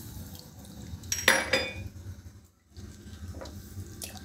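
Thin milk-and-flour sauce sloshing in a metal kadai as it is stirred with a silicone spatula, with one sharp, briefly ringing metal clink about a second in.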